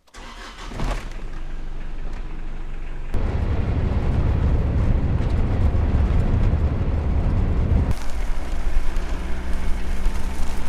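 A vehicle's engine running under a heavy low rumble that grows louder about three seconds in. Near eight seconds the rumble eases and a steady engine hum comes through.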